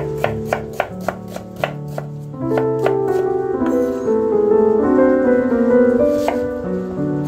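Fissman chef's knife slicing through a raw onion and tapping a wooden cutting board, a quick run of about three to four cuts a second in the first two seconds, then a few more cuts around the middle. Piano background music plays throughout.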